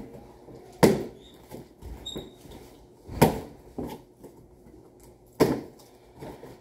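Cardboard shipping box being pulled and torn open by hand: three loud sharp cracks about two and a half seconds apart, with softer rustling and handling noises between.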